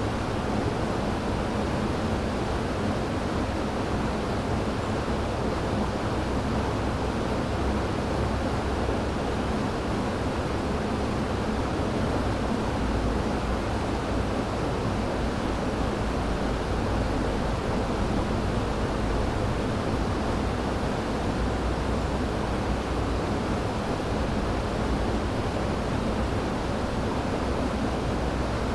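River water rushing over rocks: a steady, even rush with a strong low end and no breaks.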